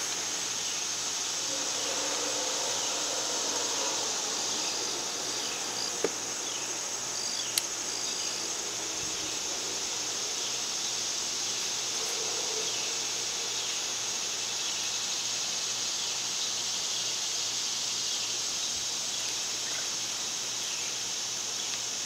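Steady high-pitched chorus of insects, even and unbroken, with two sharp taps about a second and a half apart near the middle.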